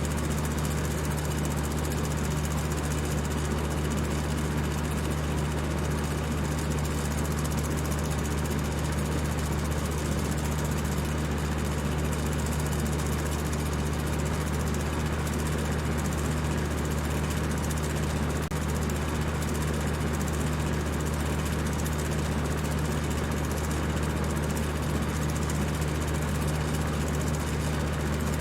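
Electric fan running at high speed: a steady motor hum with an even rush of air over it.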